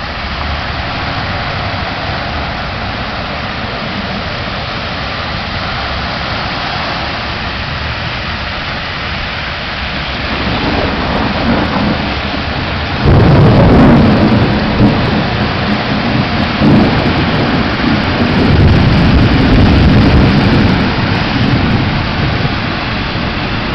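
Heavy rain falling on a flooded street, a steady hiss. About halfway through, a loud, deep rumble of thunder starts suddenly and lasts several seconds before easing.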